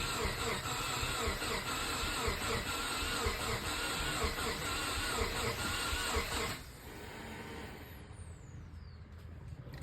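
Rebuilt Subaru EJ257 flat-four being cranked over by the starter without catching, a steady rhythmic churning with a wavering whine, which stops abruptly about six and a half seconds in. The engine turns over but does not fire: the fresh rebuild won't start.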